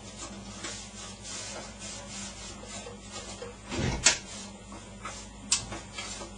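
Damp lint-free cloth rubbing and wiping over the metal inside of a desktop PC case in repeated strokes, with a knock about four seconds in and a sharp click about a second and a half later.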